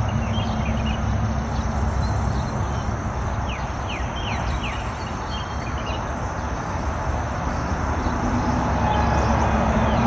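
Outdoor wind rumbling on the microphone, with a few short falling high chirps about two to four seconds in.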